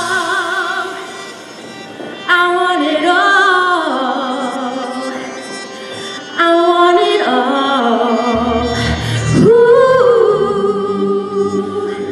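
Recorded music: a singing voice holding long notes with vibrato over sustained chords, with new chords coming in about two and six seconds in and a low bass joining near the end.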